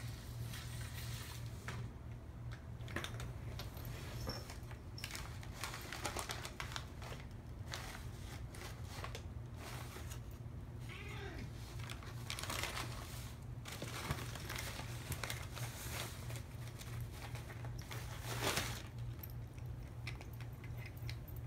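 Brown paper bag rustling and crinkling in irregular bursts as a cat pushes its head inside and paws at it, rummaging for food hidden in the bag.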